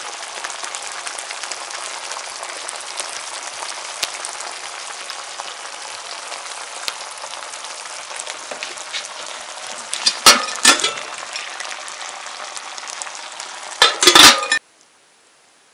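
Eggs and pieces of meat frying in a pan, a steady sizzle. Two bursts of loud clatter come about two-thirds of the way through and again near the end, and the sizzle then cuts off suddenly.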